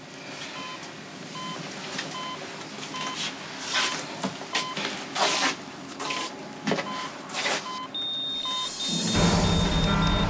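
Hospital heart monitor beeping regularly, about every two-thirds of a second, with several short rushing noises in between. About eight seconds in, a continuous high-pitched monitor alarm sounds, the alarm of a patient going into cardiac arrest. A second later, loud dramatic music swells in over it.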